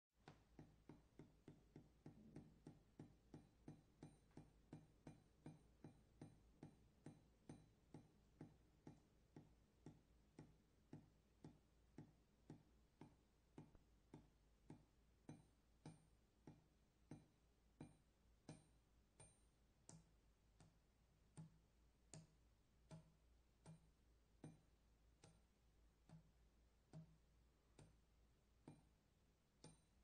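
Water dripping onto metal: quiet, regular drops, each a short click with a faint ring, about three a second at first and slowing gradually to about one a second near the end.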